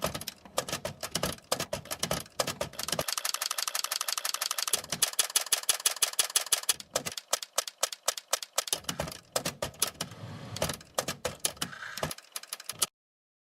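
Mechanical typewriter keys clacking in irregular strokes, with a fast, even run of clicks in the middle; the sound cuts off suddenly about a second before the end.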